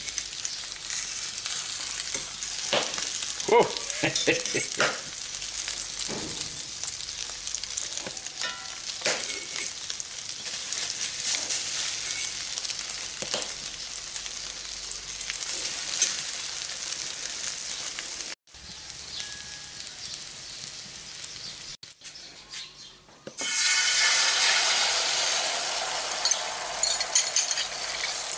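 French toast sticks frying in rice bran oil in a cast iron skillet: a steady sizzle with sharp clinks of a fork against the pan as the pieces are turned. About two-thirds through, the sizzle drops away for a few seconds. Then a louder, fuller sizzle starts as beaten egg is poured into the hot oil.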